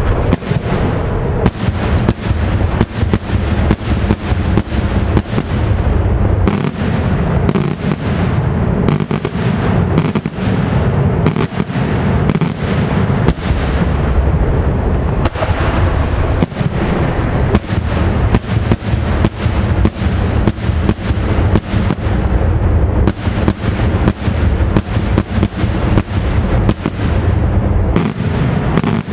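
Daytime aerial fireworks going off overhead: a dense, unbroken barrage of sharp bangs, several a second, as shells burst into many small reports.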